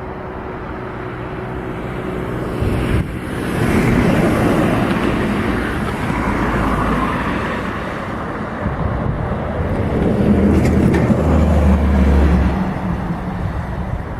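Boeing 757 airliner's jet engines, a loud steady roar that swells about three seconds in and holds as the aircraft passes.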